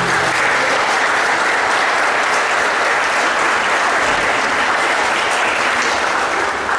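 Audience applauding, a dense steady clapping of many hands; the last notes of the music die away just as the applause takes over.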